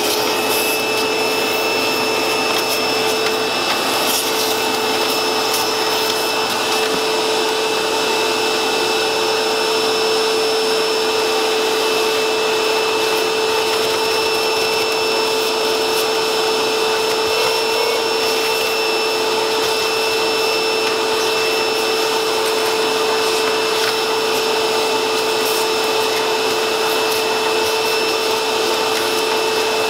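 Vacuum cleaner running steadily, a rush of air with a steady whine. Its hose nozzle is sucking dirt out of the inside of a laser printer.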